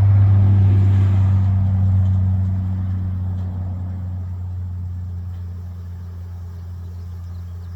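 A motor vehicle speeding along a nearby road, a steady low engine hum that is loudest at the start and fades gradually as it moves away.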